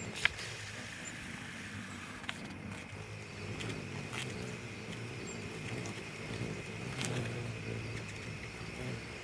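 Hummingbirds' wings humming low and steady, with four short sharp chips scattered through, the loudest right at the start.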